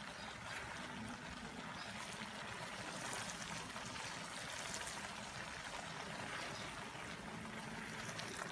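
Coconut milk boiling hard in a pan, being cooked down into coconut oil: a steady bubbling hiss with many small pops, stirred now and then with a spatula.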